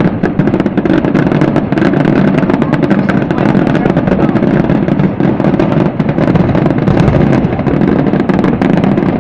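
A fireworks display at a dense, unbroken barrage: many shells bursting in rapid succession, their bangs and crackles running together.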